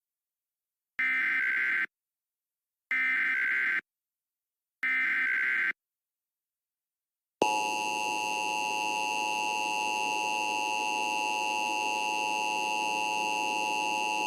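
Emergency Alert System tornado warning opening: three short bursts of SAME digital header data tones, about a second each and two seconds apart, then the steady two-tone EAS attention signal coming in sharply about seven seconds in.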